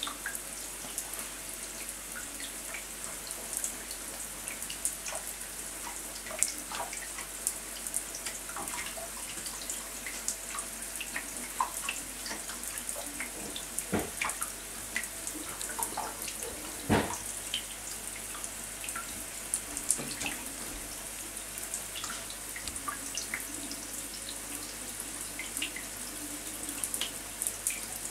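Shower water running and pattering onto a plastic shower tray, a steady hiss with many small scattered drip ticks. Two sharper knocks come about halfway through.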